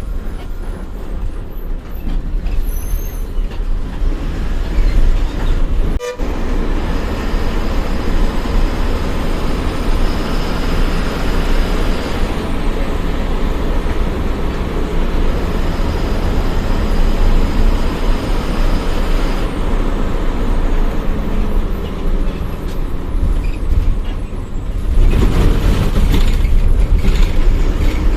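Bus running along the highway, heard from inside the cabin: a steady engine rumble with road and rattle noise. A faint high whine comes and goes in the middle, and the noise grows louder near the end.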